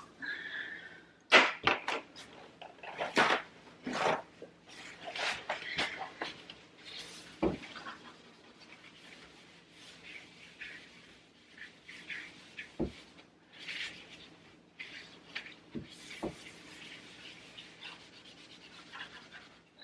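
Household cleaning and handling noises: soft rubbing and wiping strokes, as of a cloth on kitchen surfaces, with scattered knocks and clicks of things being set down or moved. The loudest knock comes about a second in.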